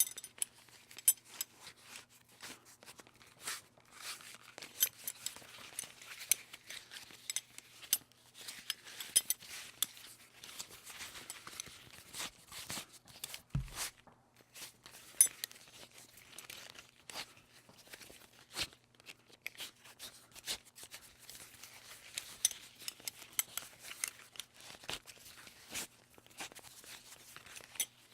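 Metal belt buckle being handled: many irregular clicks and small metallic clinks, with the belt rubbing and rustling between them, and one dull knock about halfway through.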